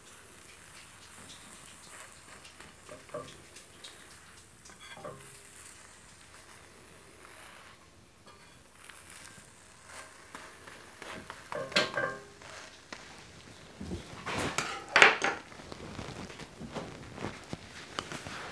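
A metal slotted spatula scraping and tapping against a cast iron pan as an egg crepe is rolled, over a faint sizzle of butter in the pan. The loudest scrapes come in two short clusters past the middle and near the end.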